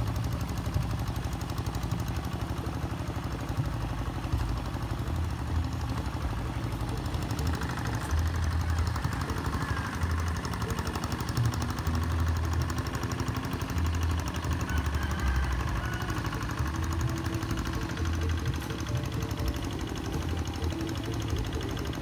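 The Kubota diesel engine of a hand tractor running steadily while plowing a rice paddy, with a low, uneven chugging.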